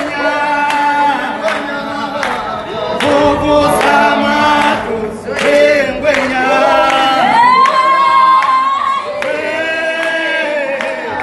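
A group of voices singing together unaccompanied, with hand clapping. About seven seconds in, one voice slides up into a long held high note.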